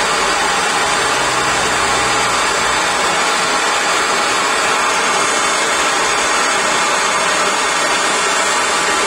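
Handheld gas blowtorch burning with a steady, loud rush of flame, heating a copper Yorkshire solder-ring fitting until the solder runs out at the joint.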